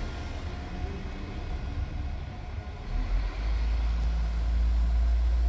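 Class 170 Turbostar diesel multiple unit pulling away, its diesel engines giving a low rumble that grows louder about three seconds in.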